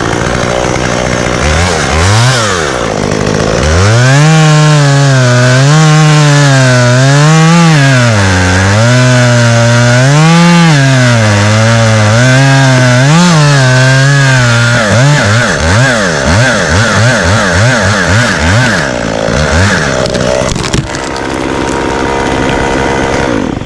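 Two-stroke chainsaw cutting into oak wood, its engine pitch dipping and climbing again and again as the chain loads up in the cut. About fifteen seconds in it gives a quick run of short throttle blips, then settles to a lower, steady running.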